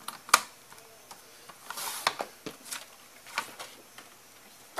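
A sliding-blade Fiskars paper trimmer cutting scrapbook paper: one sharp click about a third of a second in, then a few lighter clicks and short scraping rasps of the blade and paper.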